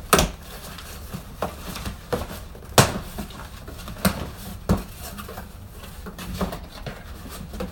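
Cardboard shipping box being cut open and its flaps pulled back: a series of sharp knocks and taps over faint rustling, the loudest about three seconds in.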